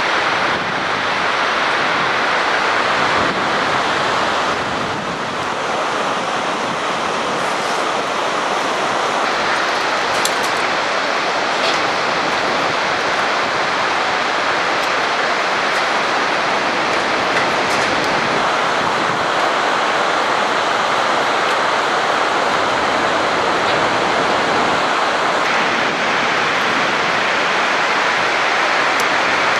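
Fast-flowing river rushing steadily, a continuous even roar with no separate events.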